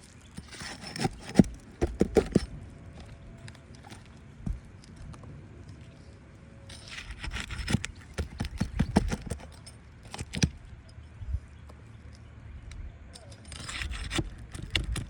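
Scraping, clicking and light metal knocks of hand work on asphalt roof shingles, in three bouts with quieter gaps between.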